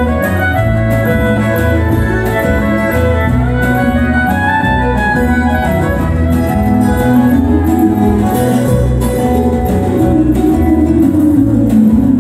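Live country band playing an instrumental passage, with fiddle over strummed acoustic guitars and drums.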